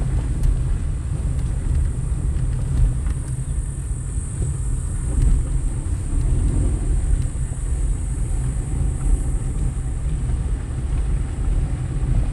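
A car driving slowly on a gravel dirt road: a steady low rumble of engine and tyres, with a few small ticks from stones and a steady high hiss above it.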